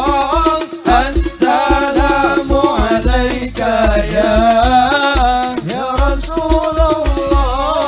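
Live Islamic sholawat music: a man's voice sings a gliding, ornamented Arabic devotional melody over a band with drums, a deep drum beat thumping underneath.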